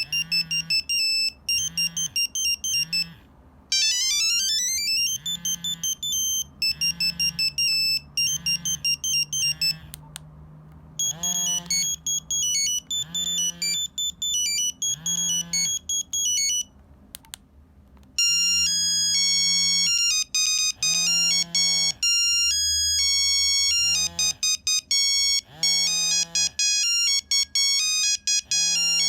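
Nokia 3395 ringtones played through the phone's own speaker, one after another: beeping single-note melodies, one of them opening with a fast rising run of notes about four seconds in. Short pauses near 10 and 17 seconds separate the different tunes.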